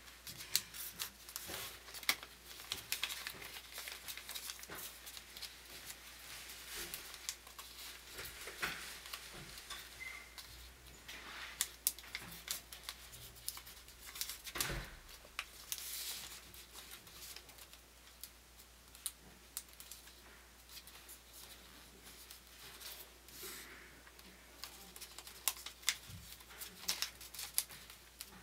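Origami paper being folded and creased by hand: irregular rustling and crinkling, broken by many short, sharp scrapes as folds are pressed flat.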